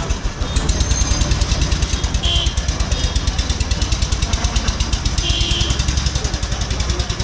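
A motor vehicle's engine idling close by, with a fast, even chugging pulse.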